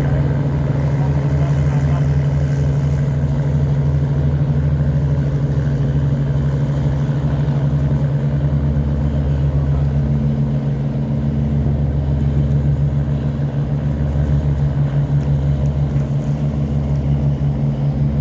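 Diesel engines of river towboats running steadily with a deep, even throb, the boats hauling loaded cargo barges upstream against a strong current.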